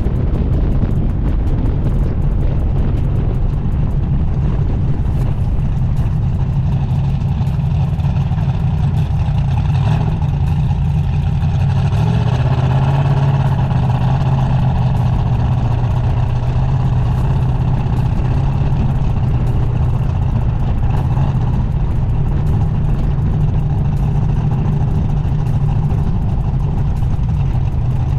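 Turbocharged drag car's engine running steadily as the car rolls along after a pass: a loud, even, deep drone with no hard revving.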